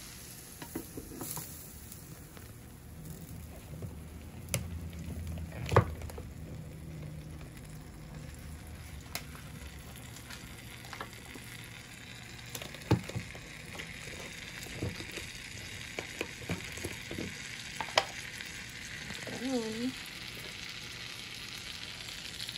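Butter melting and sizzling in a nonstick frying pan while a wooden spatula stirs it, knocking against the pan a few times. The sizzle grows stronger in the second half as the butter heats and foams.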